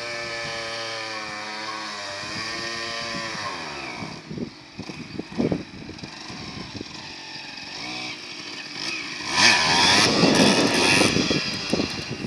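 Small dirt bike's engine running steadily as it approaches, its pitch dropping about four seconds in; it gets much louder near the end as the bike passes close by.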